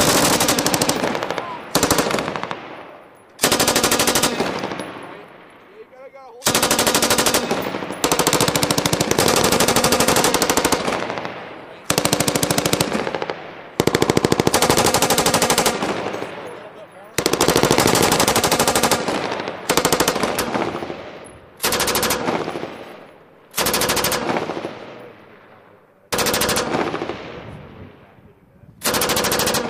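M249 light machine guns (5.56 mm) firing burst after burst of automatic fire, several guns along the line, about a dozen bursts of one to five seconds each. Each burst trails off in a rolling echo.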